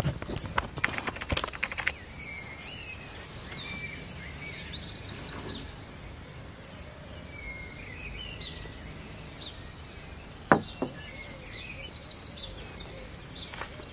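Birds chirping and singing in short, quick repeated phrases over a steady outdoor background. There is a cluster of clicks in the first two seconds and a single sharp knock about ten and a half seconds in.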